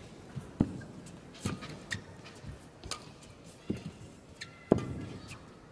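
Badminton rally: rackets striking the shuttlecock in sharp cracks about a second apart, the loudest near the end.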